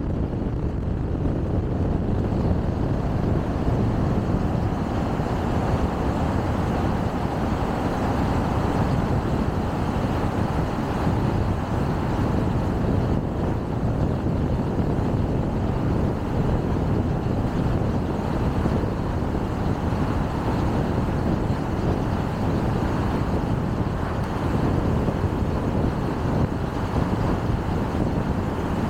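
Steady road noise of a car driving: tyre and wind noise, deepest and strongest in the low range, holding even throughout.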